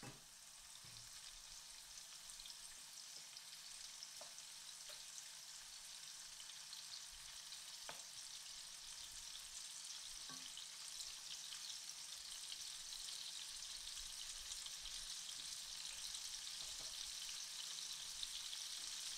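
Paneer cubes frying in hot oil in a wok, a steady sizzle that grows louder as the oil heats. A few light knocks come from a wooden spoon turning the pieces.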